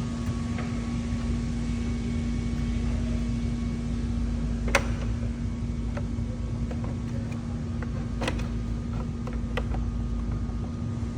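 A steady low machine hum with one constant tone, with occasional sharp clicks and knocks from plastic parts being handled and pressed into place while a side-camera housing is refitted.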